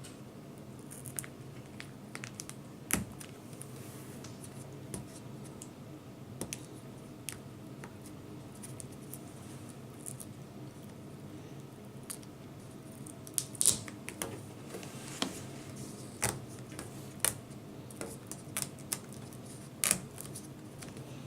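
Fingers working small tape pieces and the display ribbon cable loose inside a laptop screen: scattered clicks and scratches, busiest in the second half, over a steady low hum.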